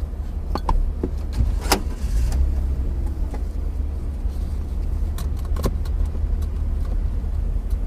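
Inside a 1993 BMW E36 325is on the move: a heavy, steady low rumble with scattered sharp knocks. It is the drivetrain rubbing and smacking underneath, caused by a broken differential mounting bolt.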